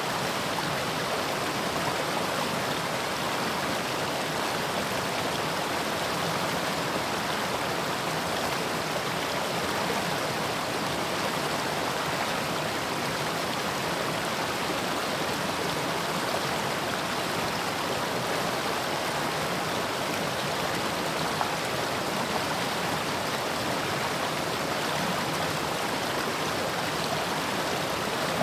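Mountain stream water rushing over rocks, a steady, even flow.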